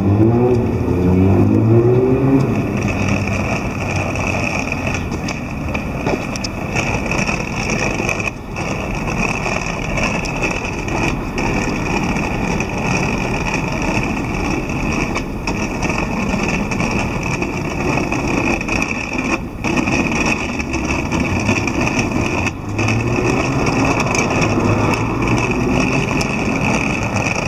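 Road traffic on a city street: a steady hum of passing cars, with one vehicle accelerating, its engine note rising, at the start and another accelerating near the end.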